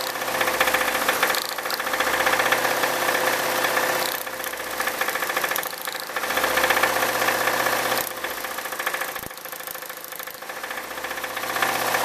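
Ford 1.9-litre four-cylinder engine idling with a knock, a rapping sound from the bottom end. The knock swells and drops twice as the number one spark plug wire is pulled off and put back: it is loudest with number one firing, so the noise is most likely rod bearing or piston related in number one cylinder.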